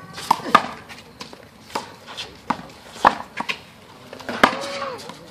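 Handball rally on a one-wall court: sharp slaps of the ball off bare hands and the wall, about seven in all, unevenly spaced, with short squeaks near the end.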